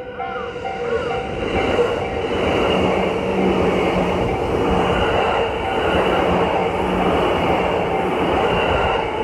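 A Yamanote Line electric train running past over the level crossing: its rushing noise builds over the first two seconds and stays loud. The crossing's warning bell keeps ringing underneath in evenly repeated tones, a little under two a second.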